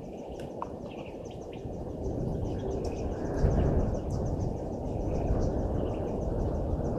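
Bush ambience: a steady high chirping repeated about five times a second, with a few scattered bird-like calls, over a low rumbling noise that swells about two seconds in and is loudest around the middle.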